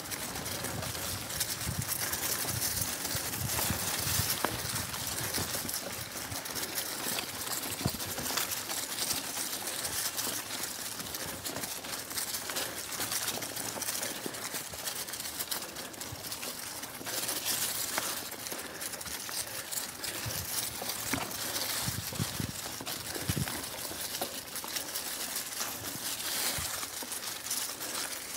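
Mountain bike tyres rolling over dry fallen leaves on a dirt singletrack, with continuous crunching and rustling and occasional low thumps as the bike goes over bumps.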